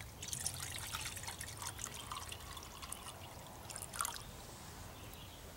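Water poured from a plastic canteen into a metal camp cup, trickling and splashing for about four seconds, then stopping.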